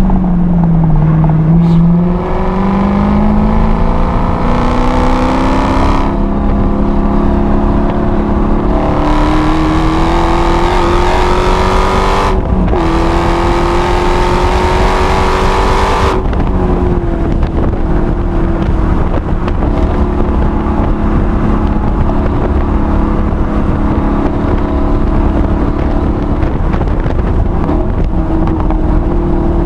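Supercharged 6.2-litre HEMI V8 of a six-speed manual Dodge Challenger Hellcat, heard from inside the cabin while lapping a race track: the engine note rises steadily under acceleration for about ten seconds, breaks briefly, climbs again, then levels off into a steadier note for the rest.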